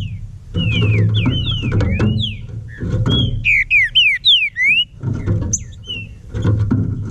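Green-winged saltator (trinca-ferro) singing in quick whistled slurs, rising and falling. One run of notes starts about half a second in and a louder run comes around three and a half seconds in. Background music with a plucked bass runs underneath.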